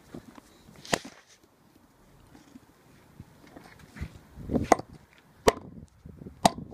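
Sharp cracks of a golf ball being struck hard on a paving slab in an attempt to split it open: one hit about a second in, then a short clatter and three more hits close together near the end.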